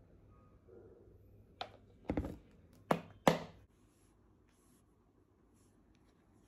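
A few short, sharp knocks and taps in quick succession in the middle, over faint room tone, the last knock the loudest.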